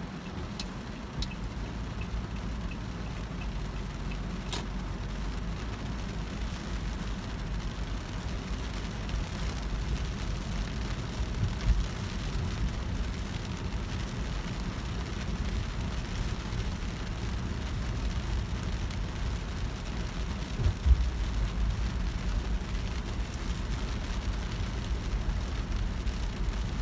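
A car driving through rain, heard from inside the cabin: a steady low road-and-engine noise with rain hissing on the glass and body. A few faint clicks sound near the start, and two short thumps come about twelve and twenty-one seconds in.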